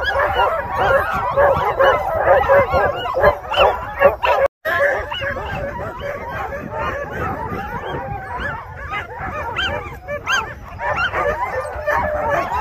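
Many sled dogs barking, yipping and whining at once, a dense overlapping chorus of short rising and falling calls. The sound cuts out for an instant about four and a half seconds in.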